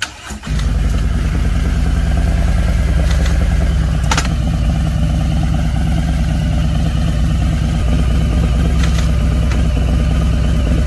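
Large touring motorcycle engine starting about half a second in and then idling steadily.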